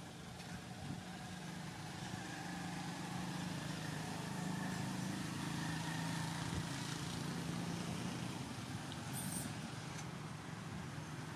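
Steady low hum of a motor vehicle engine passing at a distance, growing louder over the first half and easing slightly near the end.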